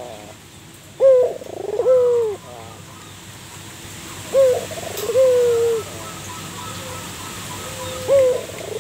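Zebra dove (perkutut) cooing: three phrases a few seconds apart, each a short note followed by a longer, wavering note that drops in pitch at its end.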